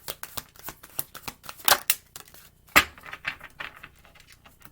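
A deck of oracle cards being shuffled by hand: a rapid run of soft clicks and flicks, with two louder snaps near the middle.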